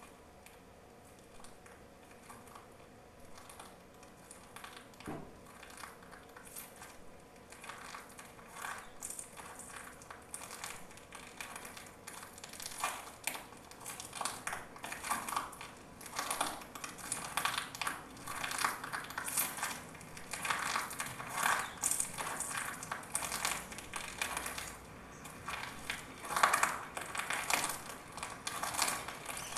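Irregular crunching and crackling, starting faint and growing steadily louder.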